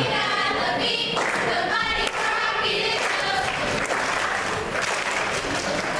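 A squad of cheerleaders chanting a cheer in unison in short shouted phrases, with claps in time.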